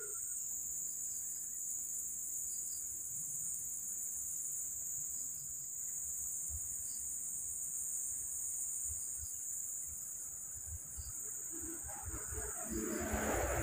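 A steady, high-pitched chorus of insects buzzing without a break, with a few faint low bumps in the second half.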